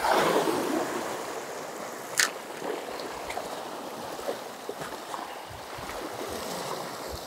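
Sea waves washing against a rocky shore, swelling in the first second. A single sharp click about two seconds in, with a few faint ticks after it.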